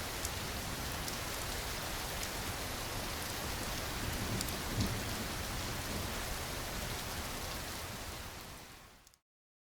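Steady rain, with fine scattered drop ticks and a brief low thump a little before halfway. Near the end the rain fades out to complete silence.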